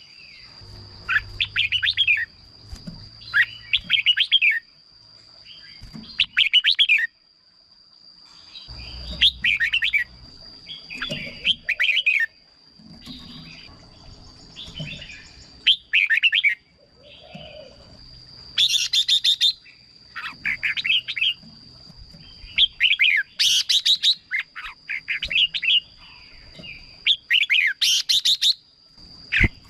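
Red-whiskered bulbul singing: short, bubbly whistled phrases repeated every second or two, with a few louder, harsher phrases in the second half. A steady high thin tone runs underneath.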